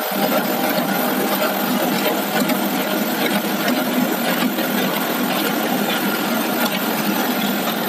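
IECHO GLSA automatic multi-ply fabric cutting machine running and cutting fabric, a steady, even mechanical noise.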